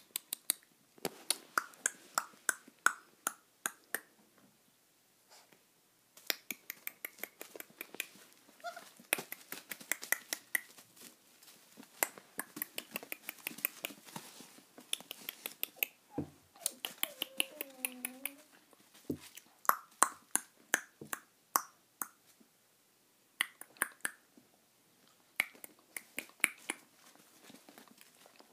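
American Bulldog puppies: a long run of sharp, rapid clicks and smacks, broken by short high squeaks. About sixteen seconds in comes a drawn-out whine that bends up and down.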